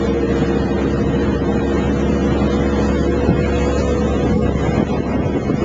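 Motorboat engine running steadily with the boat under way, a hum of several steady tones over a rushing wash of wind noise on the microphone.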